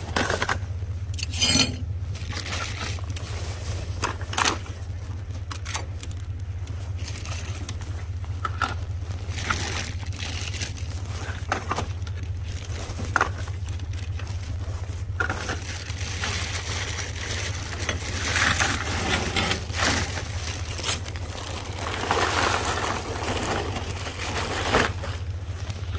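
Plastic bags and packaging rustling, crinkling and scraping as someone moves around among trash in a dumpster, with clothing brushing the phone's microphone and a few sharp clicks. A steady low hum runs underneath.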